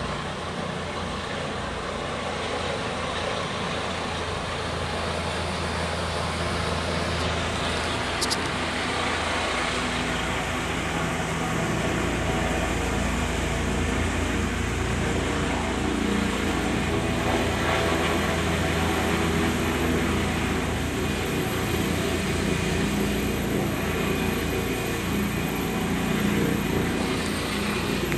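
Helicopter rotor and turbine engines running as the helicopter comes down and lands, growing gradually louder over the first dozen seconds.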